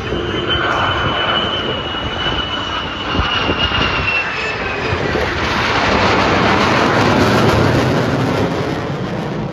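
F-35 Lightning II jets flying overhead in formation with an F4U-4 Corsair: jet engine noise with a high whine that slowly falls in pitch over the first five seconds, under a rushing sound that grows loudest about six to eight seconds in.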